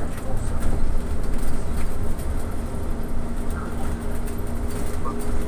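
Cabin noise inside a moving trolleybus: a steady low rumble from the ride, with a steady electric hum running through it.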